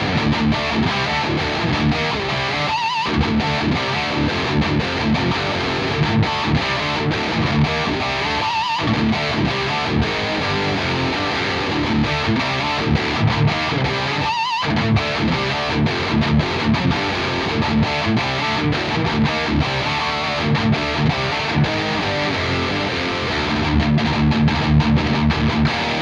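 Harley Benton Fusion-III electric guitar played with heavy distortion on its bridge humbucker: continuous rhythm playing with three short breaks in the first fifteen seconds and heavier low notes near the end.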